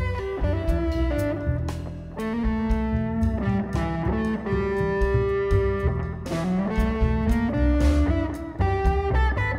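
Instrumental passage of a band song with no singing: a guitar plays a melody of held notes over bass and drums.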